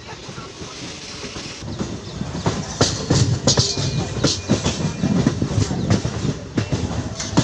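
MEMU train's wheels clattering over rail joints and station points, heard from an open carriage door over the rumble of the running train. The clatter grows louder and busier about two and a half seconds in.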